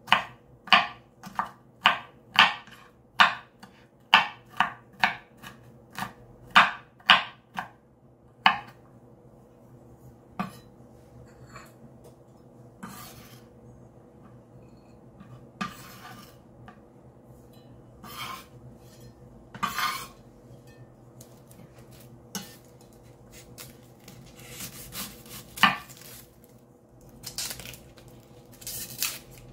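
A chef's knife chops pineapple on a bamboo cutting board in quick strokes, about two a second, for the first eight seconds. Then come scattered single taps and scrapes of the blade on the board as the pieces are gathered, and near the end a busier run of rustling and cutting as a red onion is peeled and trimmed. A steady faint hum lies underneath.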